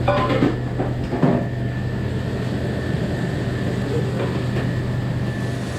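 Steady low mechanical hum of a running motor, with a faint steady high whine above it.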